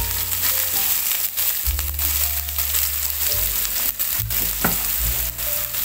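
Sliced shallots, garlic and chilies sizzling as they fry in hot oil in a wok, with a spatula stirring them around the pan. Soft background music with held low notes plays underneath.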